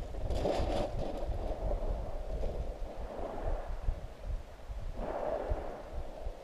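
Small waves washing up onto a shingle beach in surges a few seconds apart, over a low rumble of wind on the microphone.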